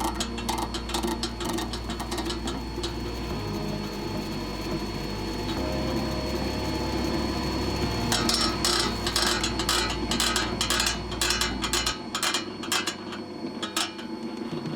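Tabletop kneader running, its mechanism giving a rapid clicking rattle that grows denser in the second half, over a steady low hum.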